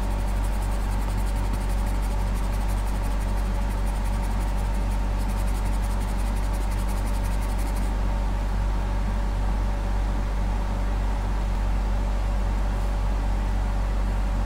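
A steady low hum with even hiss throughout. Over this, faint rapid high-pitched scratching as a pen-shaped abrasive tool scrubs the corroded, burnt-out track of a car blower-motor resistor; the scratching stops about eight seconds in.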